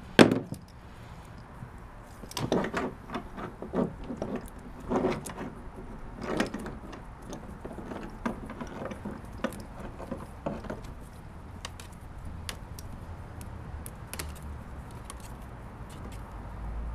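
Plastic spiral wrap being pulled off a bundle of electronics cables, with the cables handled: irregular clicks, rattles and rustles. A sharp knock comes right at the start, the noise is busiest in the first several seconds, then thins to light ticks.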